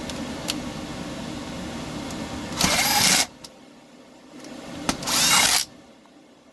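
Stihl TS 400 concrete saw's recoil starter pulled twice, each pull a loud whirr of about half a second as the engine is spun over without starting.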